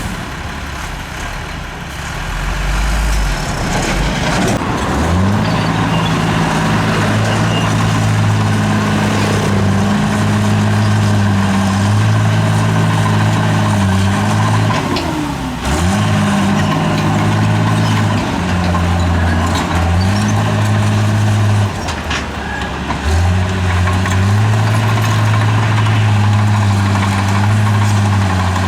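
Heavy diesel engine of earthmoving machinery running hard. It picks up in pitch about five seconds in, holds steady, and sags briefly a few times before coming back up.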